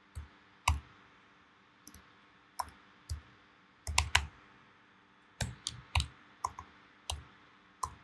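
Keystrokes on a computer keyboard as text is typed in letter by letter: single clicks and short quick runs of clicks with pauses between them.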